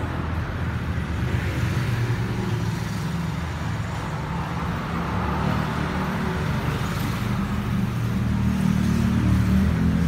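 A steady low mechanical hum with a hiss over it, growing a little louder near the end.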